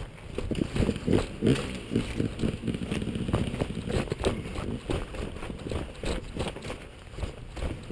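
Dirt bike ridden slowly over a rocky trail, heard through a helmet-mounted camera: the engine runs under a dense string of knocks and rattles as the bike jolts over rocks, heaviest in the first few seconds.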